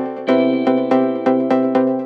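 Background music with a steady pulse of repeated pitched notes, about two and a half a second, each struck and fading before the next.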